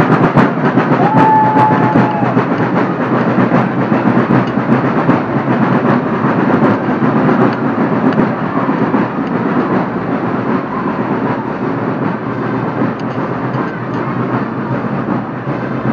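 Dense, continuous clattering noise of a street procession, with a short whistle about a second in; the noise slowly grows quieter.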